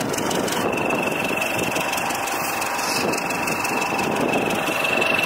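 An engine running steadily with a constant high-pitched whine over it; the whine steps up slightly in pitch under a second in.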